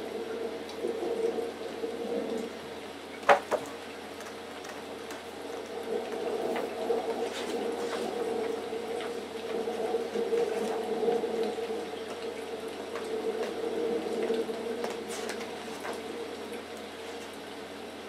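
Pages of a large hardcover book being handled and turned, with a sharp tap about three seconds in, over a steady rushing background noise that swells and fades.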